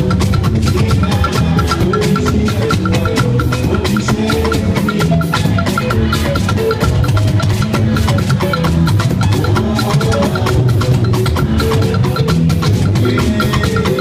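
Lively church music with drums and percussion, driven by a steady, evenly repeating high tapping beat over low drumming and shifting pitched notes.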